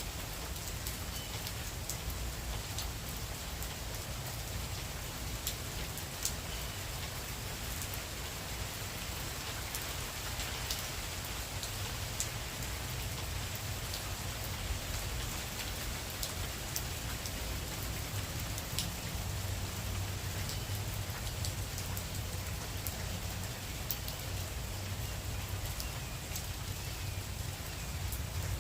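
Heavy tropical-storm rain falling steadily, a constant hiss with scattered sharp drops ticking on nearby surfaces and a low rumble underneath.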